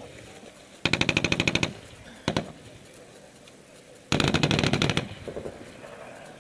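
Automatic gunfire in a firefight: a burst of rapid shots about a second in, a single shot, then a second burst of about a second.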